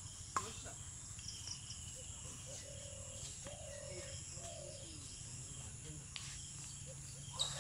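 Faint, steady trilling of crickets and other insects, with some bird calls. A sharp tap breaks in about half a second in, and fainter taps come near the end.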